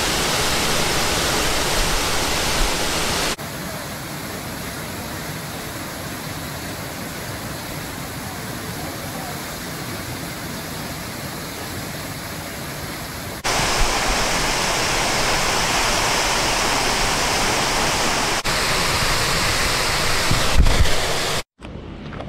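Waterfall: a steady rush of falling water over several cut-together shots, its level and tone changing abruptly at each cut and dropping out briefly near the end.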